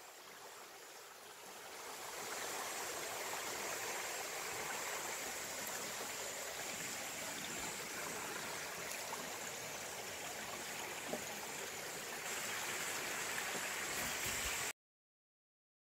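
Small rocky mountain stream trickling and babbling over stones, a steady rushing hiss. It fades in over the first couple of seconds and cuts off abruptly about a second before the end.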